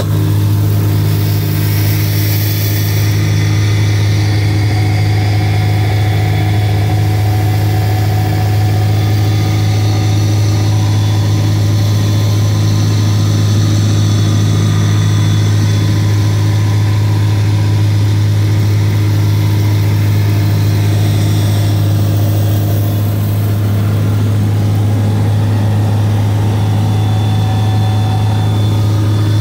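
Ultralight airplane's engine and propeller running steadily at cruise, heard from inside the cockpit as an even, unchanging low drone.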